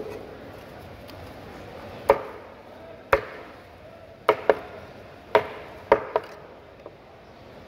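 Large knife chopping ruby fish pieces on a wooden chopping block: about eight sharp, irregularly spaced chops, two of them coming in quick pairs a little after the middle.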